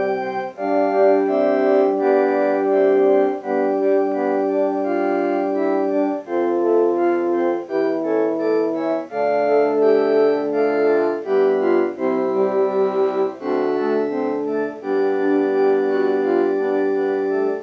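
Mountain Computer synthesizer card in an Apple II+ playing a short song in its organ voice: held multi-note chords that change every second or so, until the song cuts off suddenly at the end.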